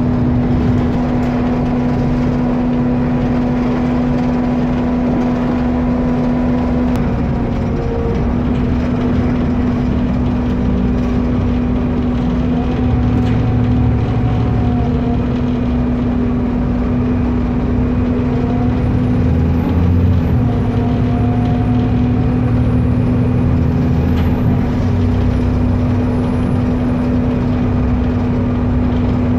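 Engine roar of an Alexander ALX400 double-decker bus heard inside the lower deck from the back seats, near the engine. A steady droning tone runs throughout over the low rumble, and the engine note shifts a few times as the bus drives on.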